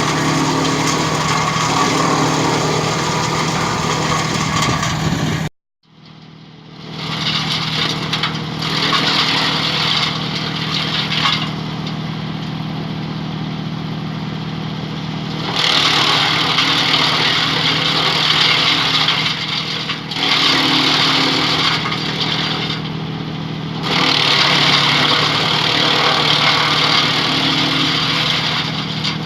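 DURKYA 600T heavy-duty shredder (wood chipper) running with a steady hum. Several stretches of loud, noisy chipping, each lasting a few seconds, alternate with quieter running as drumstick tree branches are fed through the blades. The sound cuts out completely for a moment a little after the start, then fades back in.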